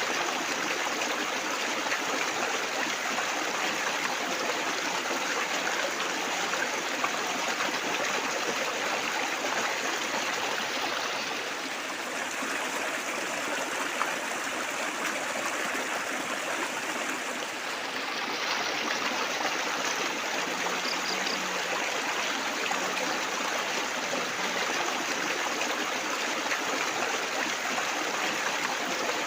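Running water trickling and splashing steadily, easing slightly softer for a few seconds midway.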